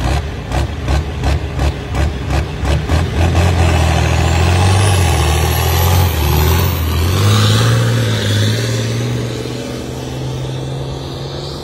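International Harvester 1466 tractor's turbocharged diesel engine at full throttle, pulling a weight-transfer sled. It pulses quickly for the first three seconds, then settles into a steady, heavy drone that rises in pitch about seven seconds in and eases off slightly near the end.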